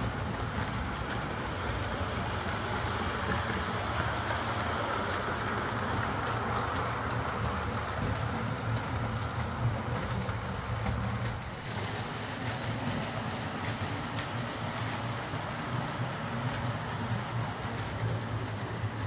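OO gauge model locomotive hauling coaches along the layout track: a steady electric-motor hum with the rumble of the wheels on the rails, a little quieter from about two-thirds of the way through.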